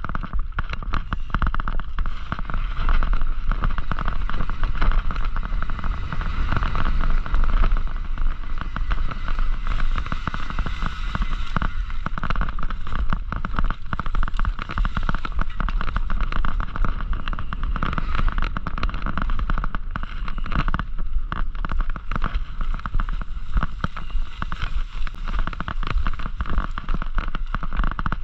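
Mountain bike ridden fast over a rough cross-country trail: a dense, continuous crackle of small knocks and rattles over a steady low rumble.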